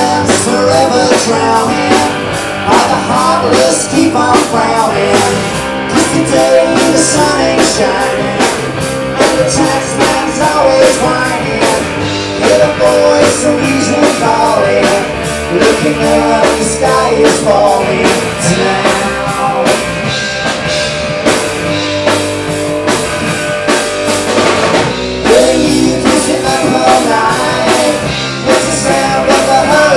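A rock band playing live: electric guitar, bass guitar and drum kit with a steady drumbeat, and a singer over it.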